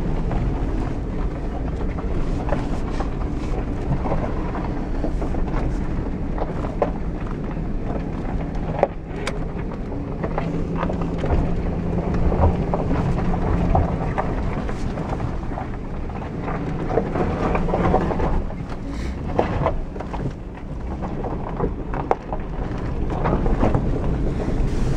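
Jeep Grand Cherokee WJ crawling along a rough gravel trail, heard from inside the cabin: a steady low engine and drivetrain rumble, with frequent short knocks and rattles as the tyres go over the bumpy track. The engine note swells a little at times.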